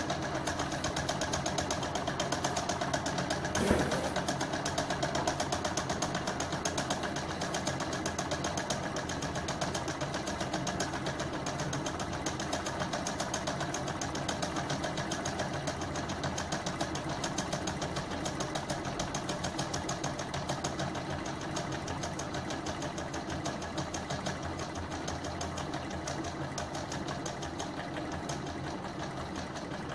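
Small home-built gamma-type Stirling engine running on its methylated-spirit burner: a fast, even mechanical clatter, with one louder knock about four seconds in, getting a little quieter toward the end.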